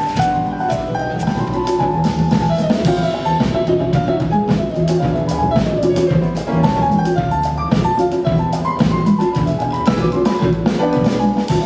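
A small jazz combo playing live. A keyboard with a piano sound runs a quick melody of short notes over an upright double bass, a drum kit and congas.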